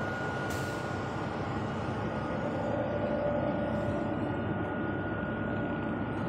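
Conveyor belt running over its rollers: a steady mechanical rumble and hiss with a thin, steady high whine above it.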